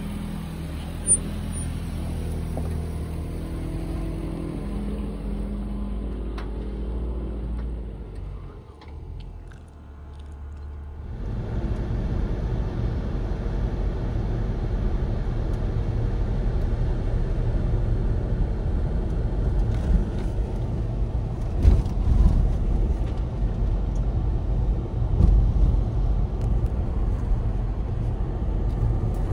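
Land Rover LR4 on an off-road trail: the engine runs steadily, dips about eight seconds in, then gives way to a louder low rumble with scattered knocks.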